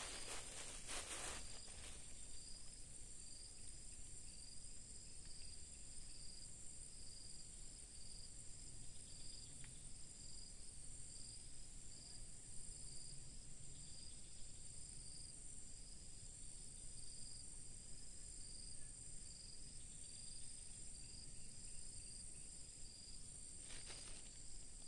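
Insects calling in a steady outdoor chorus: one continuous high-pitched trill, with a lower pulsing call repeating about once a second. A brief rustle at the start and again near the end.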